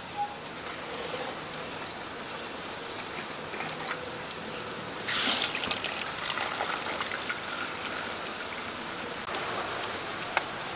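Water poured from a glass into a small metal pan holding palm sugar and pandan leaves on a charcoal stove, starting suddenly about five seconds in and running on for a few seconds. Before it, only a faint steady noise.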